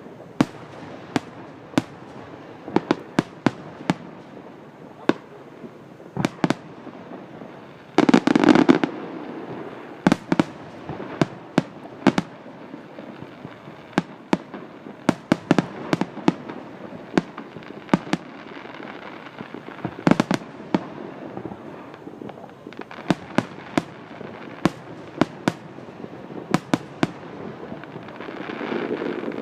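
Aerial fireworks shells bursting in an irregular series of sharp bangs, several a second at times. About eight seconds in, a dense, louder volley lasts about a second.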